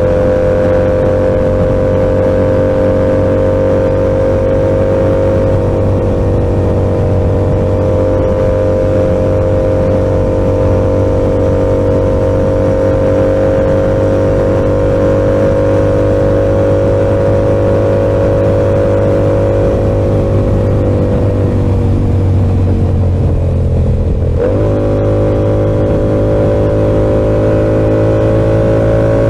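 Yamaha R7's 689 cc CP2 parallel-twin engine through an SC-Project exhaust, cruising at a nearly steady engine speed that creeps up slowly. About three-quarters through, the engine speed sags and then jumps with a gear change before steadying again.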